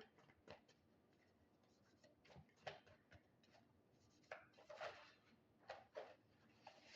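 Tarot cards being handled: faint, scattered rustles and soft taps.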